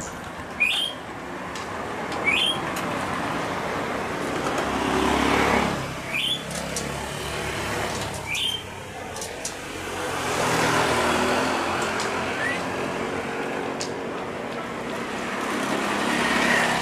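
Road traffic and an approaching jet airliner. Passing vehicles swell and fade about three times, with a falling pitch on the first pass, and a bird's short rising chirp repeats every couple of seconds.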